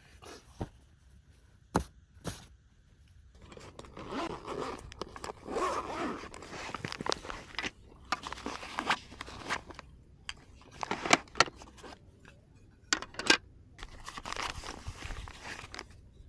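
Handling noises: rustling and scraping in bouts, with several sharp clicks and knocks, the loudest about eleven and thirteen seconds in.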